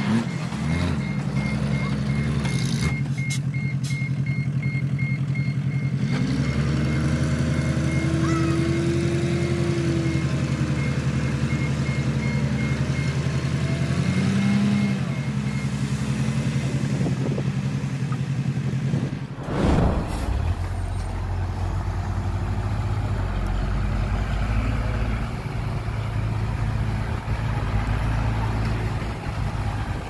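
Heavy diesel engines of a dump truck and bulldozer running, with engine pitch rising and falling. A reversing alarm beeps steadily through roughly the first half. The sound changes abruptly about two-thirds of the way through to a different, rougher engine note.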